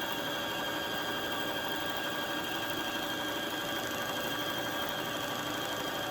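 Brother ST150HDH sewing machine running at a steady speed with the bobbin winder engaged, giving an even mechanical hum.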